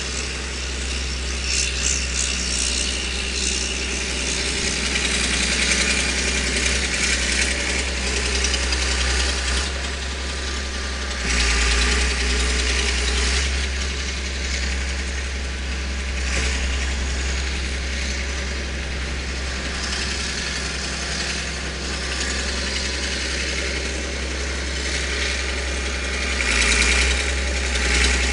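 Bobcat skid-steer loader's engine running steadily at idle, heard from inside its cab, growing louder for a moment twice.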